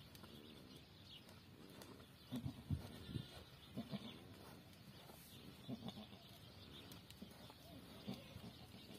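Mother goat giving quiet, short, low calls in small clusters, starting about two seconds in: the low maternal calls a doe makes to her newborn kids.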